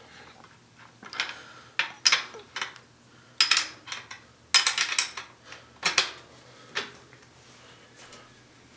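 Metal clinking and clanking from handling a bicycle's rear wheel, cassette and chain: irregular sharp knocks with a short ring, several close together in the middle of the stretch.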